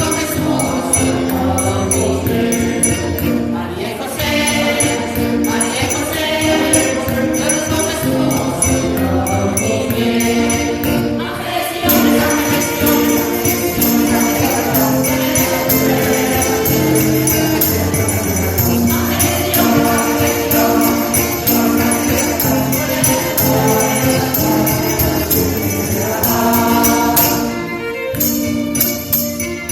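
A mixed choir singing a Spanish Christmas carol (villancico) in parts, with jingling percussion shaken along in rhythm.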